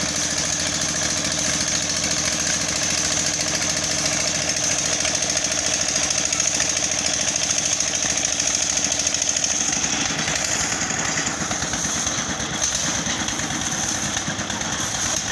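Stationary engine of a concrete mixer rig running steadily with a fast, even beat, driving the turning mixer drum.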